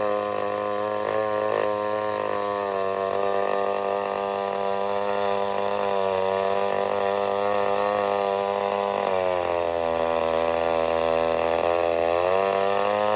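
Vintage two-stroke chainsaw engine running steadily, its pitch wavering a little. The note changes about nine seconds in and rises near the end.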